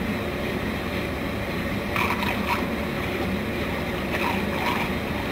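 Floating jet aerator running steadily: its motor hums under the constant rushing and splashing of the aerated water jet churning the channel.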